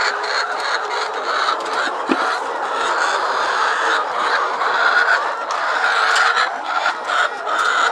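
A flock of laying hens clucking and chattering continuously, many birds calling over one another, with a few light clicks and scrapes mixed in.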